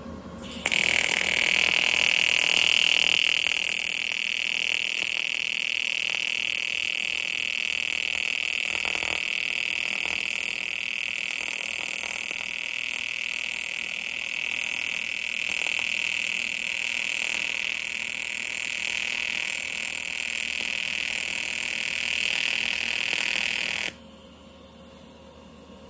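TIG welding arc buzzing steadily while a joint on front-mount intercooler piping is welded. It strikes about half a second in, is a little louder for the first few seconds, and cuts off abruptly about two seconds before the end.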